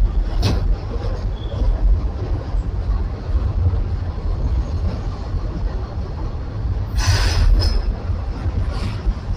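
Freight train of hopper cars rolling across an elevated bridge overhead, a steady low rumble of wheels on rail. About seven seconds in comes a short, louder, harsher burst of noise.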